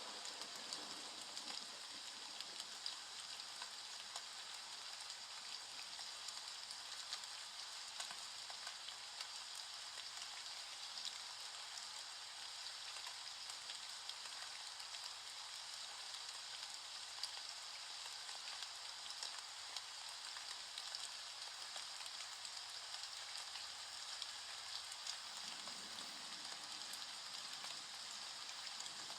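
Rain falling steadily, a continuous hiss with a fine patter of individual drops.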